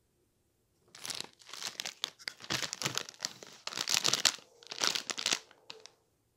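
Plastic wrapper of an instant noodle packet crinkling as hands handle it and set it down. The crinkling comes in dense bursts from about a second in, with a few last small crackles just before it stops.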